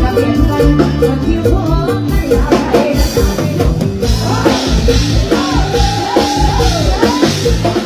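Live Isan luk thung band music with a steady drum-kit and bass beat. Cymbals come in about three seconds in, and a woman sings a long held line in the second half.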